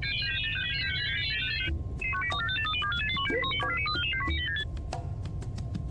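Minicon robots chattering in rapid electronic beeps and chirps: two quick runs of short high notes with a brief pause between, over a low steady hum.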